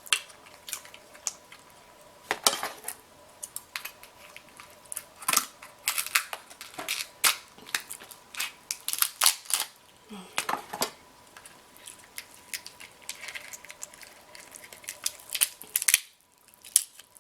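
King crab leg shells cracking and snapping in many sharp, irregular cracks as they are broken open to get at the meat, with a short lull near the end.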